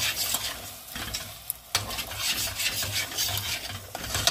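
Tomato sauce sizzling in a pot while it is stirred, with uneven scraping strokes and a couple of sharp clicks about a second and a half in.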